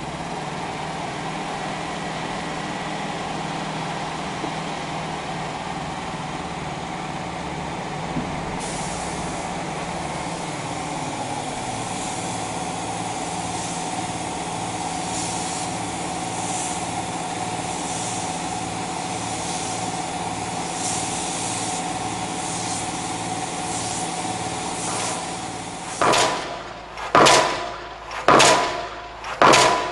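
Engine of a road-marking machine running steadily, with the hiss of paint being sprayed through a hose joining in. Near the end it gives way to a pile driver's hammer striking about once a second, each blow loud and sharp.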